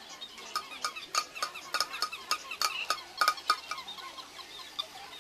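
Battery-operated toys on a shop display clattering: an irregular run of sharp, ringing taps in the first few seconds, over faint squeaky yips from the mechanical toy dogs.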